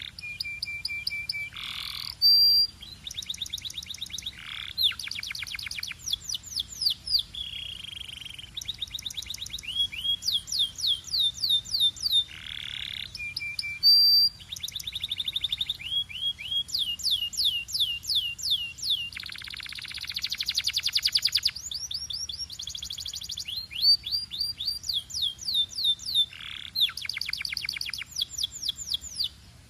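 Canary singing a long song of rapid trills, each phrase a run of quick repeated notes, with brief pauses between phrases.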